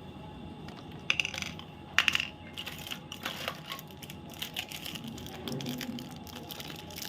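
Chocolate bar packaging being handled: two sharp crackles about one and two seconds in, then a run of small crinkling clicks.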